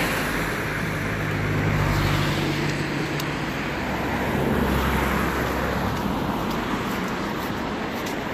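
Steady road traffic noise, a continuous rush with a low engine hum from passing vehicles.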